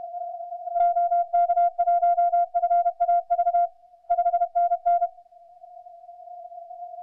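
Morse code (CW) on the 40 m amateur band heard from a transceiver: one mid-pitched tone keyed in quick dots and dashes for about four seconds. Under it a weaker steady tone at the same pitch carries on after the keying stops, about five seconds in.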